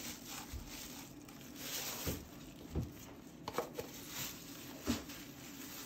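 Painting supplies being handled on a work table: a few light clicks and knocks over faint rustling.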